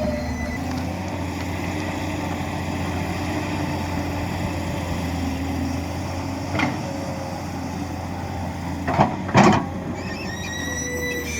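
Tata Hitachi 200EX excavator's diesel engine running steadily under work, with a sharp clank past the middle and two more close together later on.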